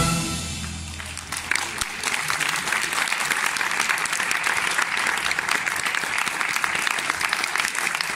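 Youth symphony orchestra's final chord cuts off at the very start and rings away in the hall over about a second; then audience applause starts and carries on steadily, greeting the end of the piece.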